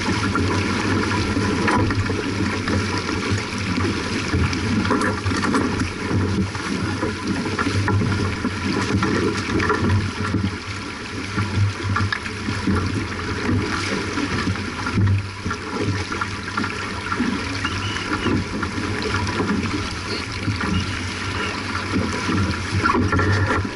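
Water running along the hull of a J/24 keelboat under sail, a steady wash without a break.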